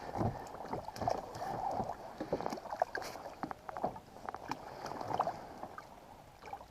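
Water lapping and splashing around a fishing kayak, with scattered small irregular knocks and splashes.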